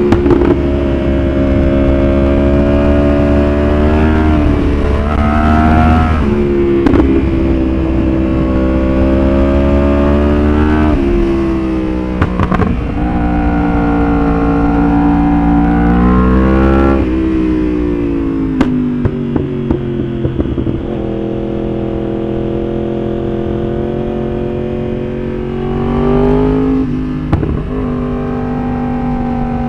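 Yamaha R1 inline-four sportbike engine under riding load, the revs climbing and dropping again and again as it accelerates through the gears and rolls off. A few sharp exhaust pops from its pop-and-bang ECU tune come around the middle as it comes off the throttle.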